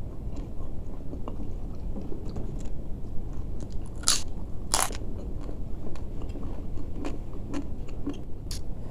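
A man chewing food by hand-to-mouth eating, with small wet clicks and smacks throughout. Two loud crunches come about four and five seconds in as he bites into a crisp piece of food.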